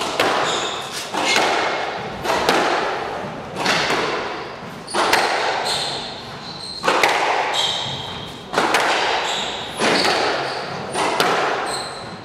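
Squash rally: racket strikes and the ball hitting the court walls, roughly one every second or so, each echoing in the enclosed court, with short high shoe squeaks on the floor between shots.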